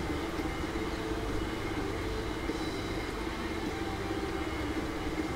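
Steady background hum with a low drone and an even hiss, no distinct events.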